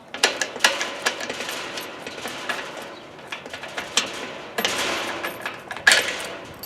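Metal clicking, knocking and scraping as a small padlock is worked back out of the drilled hole in a wrought iron gate latch. It comes as an uneven run of sharp clicks with rattling and rubbing between them.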